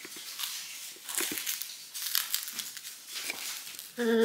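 Soft rustling and crinkling with many small scattered clicks, and a brief voiced sound near the end.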